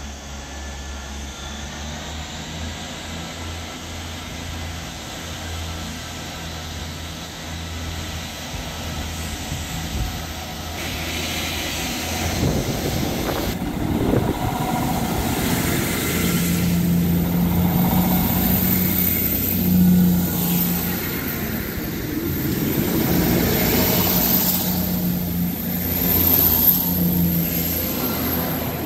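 A train approaching and running past on the line, growing louder over the second half, with a steady low hum joined by a higher pitched tone and a thin high whine.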